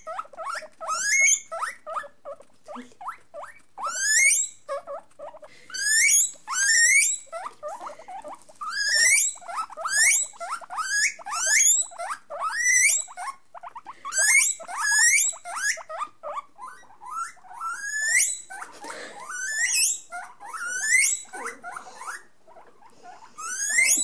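Guinea pig squealing over and over with loud, rising squeaks, one or two every second or so. It is a distressed squeak, not a wheeze for food: the sound of a stressed, unhappy guinea pig uncomfortable among new guinea pigs.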